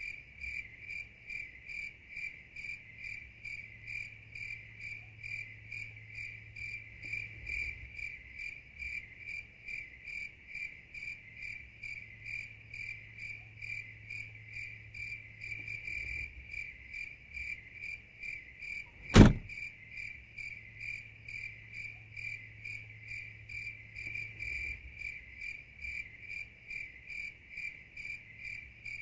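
Crickets chirping steadily, about two chirps a second, with a faint low hum underneath. A single sharp knock about nineteen seconds in is the loudest sound.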